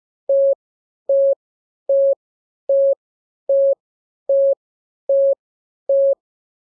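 Morse code practice tone at a steady mid pitch, keying about eight equal dashes evenly spaced a little under a second apart. Each is a lone dash, the Morse letter T.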